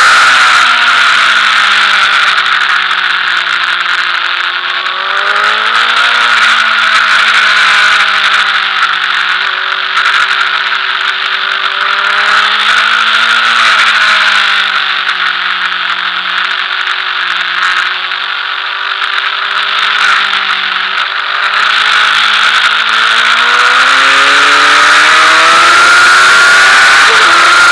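Sport motorcycle engine at high revs on a track lap, heard from onboard under heavy wind noise. The engine pitch drops off and climbs again on the throttle several times, rising about five seconds in, near the middle and over the last few seconds.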